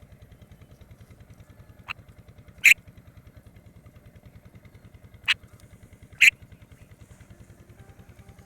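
A small engine running at a steady idle, a low throb of about eight or nine pulses a second, with four short sharp clicks over it, the second and fourth the loudest.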